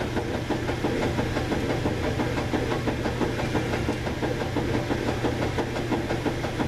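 A motor running steadily in the background, a constant hum with a fast, even rattle.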